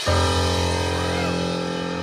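Live band playing through a concert PA as a song intro begins. A full sustained chord over deep bass comes in suddenly just after the start and is held.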